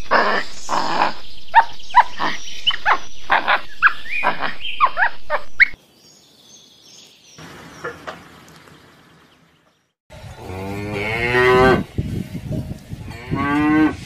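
Cows mooing: two long, drawn-out moos in the last four seconds. Before them comes a quick run of short, sharp animal calls lasting about six seconds, then a few quiet seconds.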